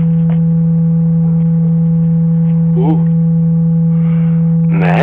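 A loud, steady, low electronic tone that holds one pitch throughout, with fainter steady higher tones above it. A short wavering voice-like sound comes about three seconds in, and another near the end.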